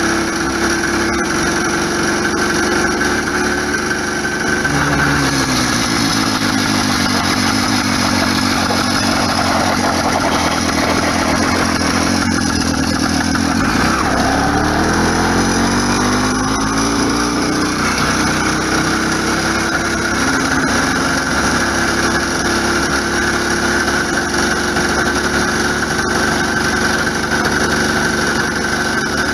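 Motorized bicycle's GT80 66cc two-stroke kit engine with a ported cylinder, running under way while still being broken in. Its note drops about five seconds in, sinks lowest a little before halfway, then climbs back and holds steady for the rest.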